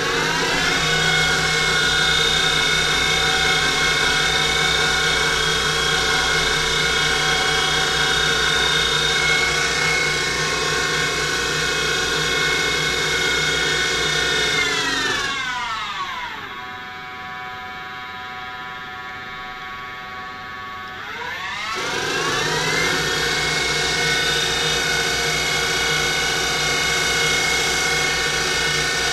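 Denford Triac CNC mill spindle, driven by a Panasonic 1.5 kW servo motor, running at speed with a steady whine of several layered tones. About halfway it winds down to a lower, quieter speed for several seconds, then speeds back up to the high whine. The odd noise that comes with increasing speed is taken by the owner for worn spindle bearings.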